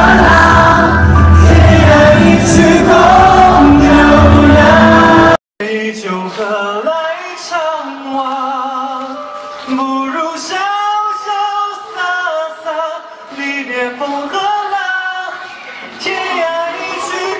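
Male voices singing over loud backing music. About five seconds in, the sound cuts off abruptly. After a short gap a thinner recording of a man singing into a microphone takes over, with almost no bass.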